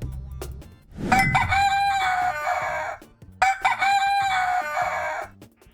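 Rooster crowing twice, each crow about two seconds long and ending on a long held note.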